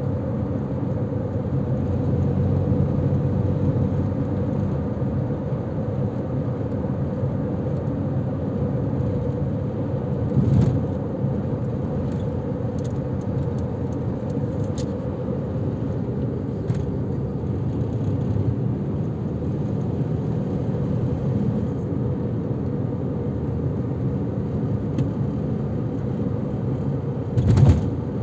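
A car driving on a city street, heard from inside the car: a steady rumble of engine and tyre noise. Two brief, louder thumps come about ten seconds in and near the end.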